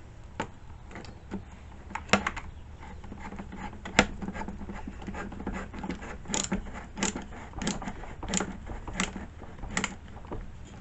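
Irregular clicks and light knocks of chainsaw parts being handled and fitted by hand, with one sharper knock about four seconds in.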